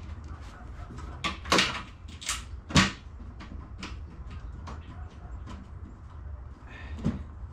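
Snowmobile rear suspension rail and track being levered into position: a few sharp metal knocks and clanks in the first three seconds, the loudest near the three-second mark, then one more knock near the end, over a low steady hum.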